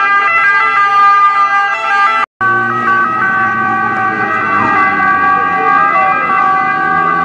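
Several emergency-vehicle sirens sounding at once, overlapping steady tones that switch between high and low notes in the Italian two-tone pattern. The sound cuts out briefly about two seconds in.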